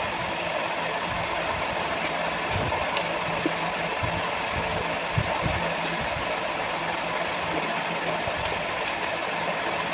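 Steady machine hum with a low drone, under a few light clicks of jewellery and a small plastic box being handled; the loudest click comes about five seconds in.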